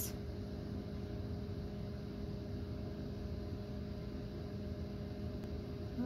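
Steady low mechanical hum with a few held tones over a low rumble, unchanging throughout; no bird calls are heard.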